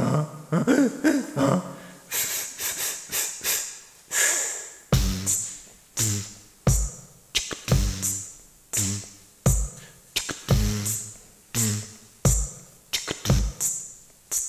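Human beatboxing: a vocal intro, then a steady beat of deep kick-drum sounds about once a second with hissing hi-hat and snare sounds between them.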